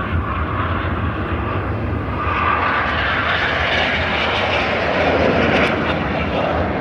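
Airplane engine noise from an air show performer flying past: a loud, even rush that swells about two seconds in and drops in pitch as the aircraft goes by.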